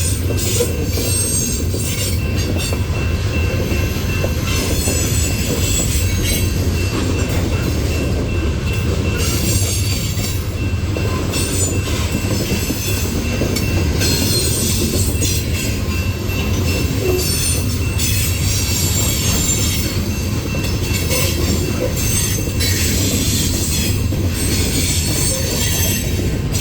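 Loaded coal train's cars rolling past on a curve: a steady, loud rumble of wheels on rail, with high-pitched wheel squeal coming and going throughout.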